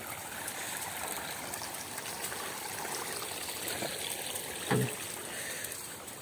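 Stream water flowing and trickling in a steady rush. A short, low vocal sound breaks in about three-quarters of the way through.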